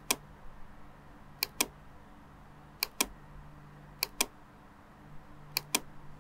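Computer mouse button double-clicking, five pairs of sharp clicks about a second and a half apart, over a faint low hum.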